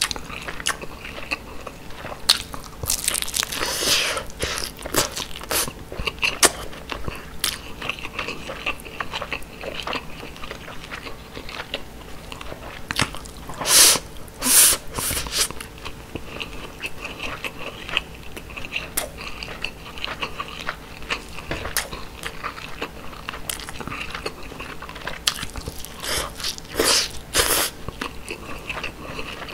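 Close-miked mouth sounds of eating grilled mackerel and white rice: wet chewing and smacking clicks, with a few louder crunchy bites, the loudest twice in the middle and twice near the end.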